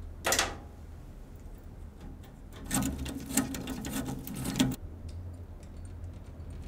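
A single sharp knock, then about two seconds of rapid mechanical clicking and rattling that cuts off suddenly.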